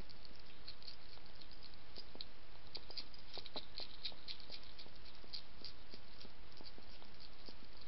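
Wild European hedgehog eating from a ceramic dish: quick, irregular crunching and clicking as it chews its food, busiest about three to four seconds in, over a steady hiss.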